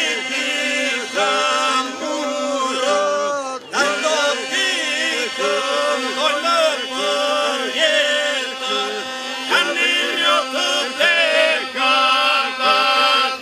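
Men's folk group singing a cappella in several parts, Albanian Lab-style polyphony, with a steady drone held under the moving melody lines. There is a brief break about three and a half seconds in.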